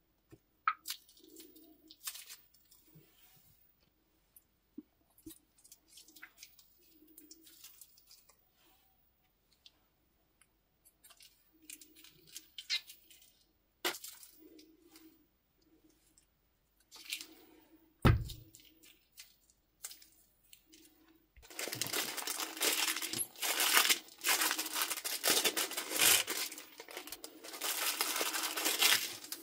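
Soft squishes and small clicks of coloured glue being squeezed out of small plastic bags onto a plate, with one thump about 18 seconds in. From about 21 seconds on, the loud, steady crinkling of a small plastic zip bag of pearl beads being handled.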